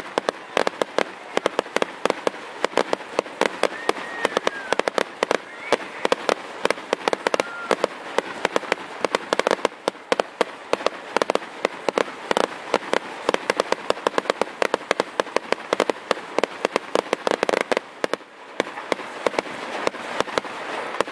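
Fireworks going off in a long, rapid run of sharp cracking pops, many each second, like a string of firecrackers.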